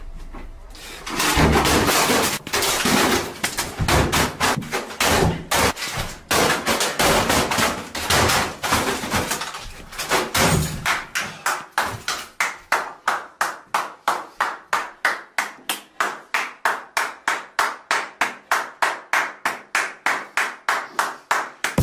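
Irregular heavy thumps and bangs of something being bashed against the floor, then hand claps in a steady beat from about halfway through, quickening toward the end.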